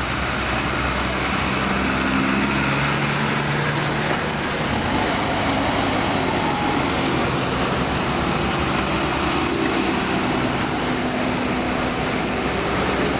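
Large diesel farm tractors, a blue New Holland and a green Deutz-Fahr among them, driving past one after another with their engines running steadily. The engine note shifts a little as each one goes by.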